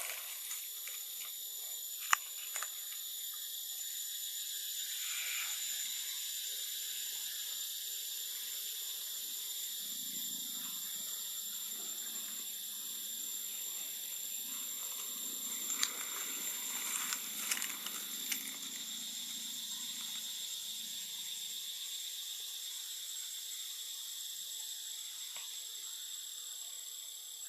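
Steady high-pitched drone of insects, holding two even tones, with a few soft clicks about two seconds in and again around sixteen to eighteen seconds.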